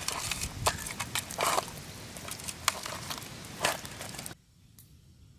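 Hands squishing and mixing raw pork ribs with garlic, chili and spices in a metal pot: irregular wet squelches and sharp clicks of meat and bone being kneaded. The sound stops suddenly about four seconds in.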